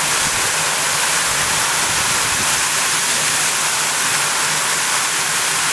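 A tall jet of water from a burst water main gushing up out of the road, its spray falling back onto the wet tarmac: a steady, even hiss and rush.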